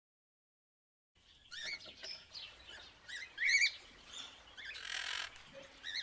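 A parrot calling: a run of short chirps that glide up and down in pitch, starting about a second in, with a brief harsh screech shortly before the end.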